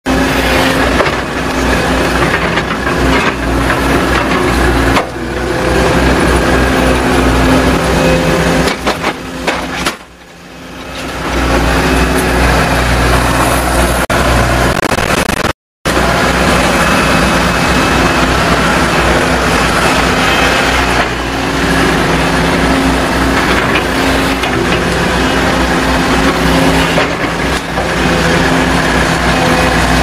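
Volvo crawler excavator's diesel engine running steadily under working load as the machine handles tree stumps and brush. It dips briefly near the middle and cuts out for a split second soon after.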